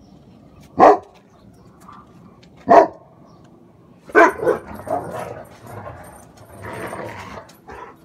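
A dog barking: two single sharp barks about two seconds apart, then a run of quicker barks and yips from about four seconds in.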